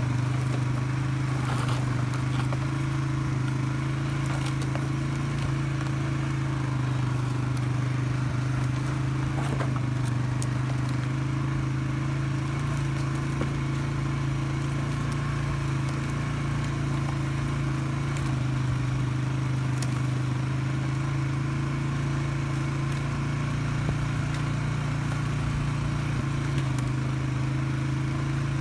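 Polaris Sportsman 570 ATV's single-cylinder engine running steadily at low trail speed, an even, unchanging drone.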